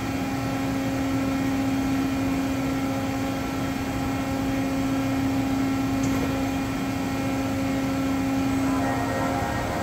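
Doosan DCM 2740 CNC bridge mill running: a steady machine hum with a constant low whine and fainter higher tones, shifting slightly near the end.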